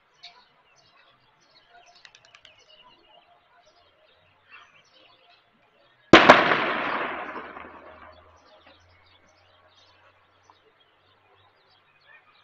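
A single loud bang about six seconds in that dies away over about two seconds into a faint low rumble, over faint scattered bird chirps.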